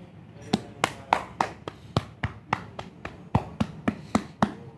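A hand patting a dog's body, a steady run of about fifteen sharp pats at three to four a second, starting about half a second in.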